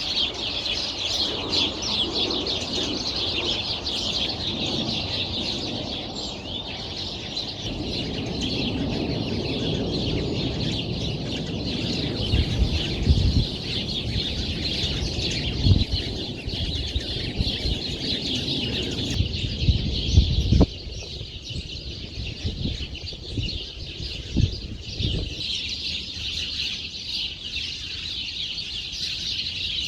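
A flock of small birds chirping together in a dense, continuous chatter. A few low thumps come in the middle stretch.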